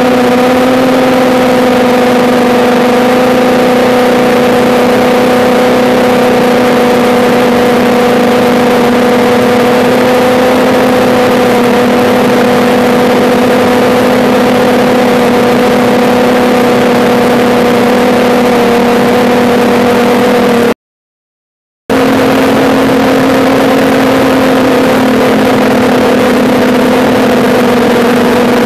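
Quadcopter's electric motors and propellers running in flight, a loud, steady hum picked up by a phone mounted on the drone. The sound cuts out completely for about a second roughly three-quarters of the way through.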